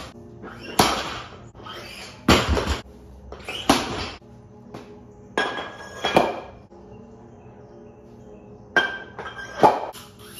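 Rubber bumper plates being slid off and onto the steel sleeves of a barbell: a string of metallic clanks and knocks every second or two, over steady background music.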